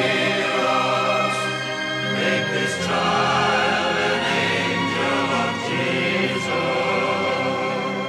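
A choir singing a Christmas carol in slow, held notes.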